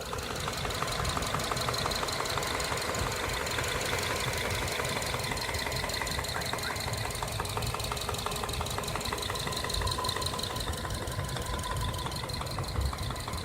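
Subaru FB25 2.5-litre flat-four engine idling with a rapid, even knock: connecting-rod knock from the cylinder 2 and 4 side, at under 100,000 km.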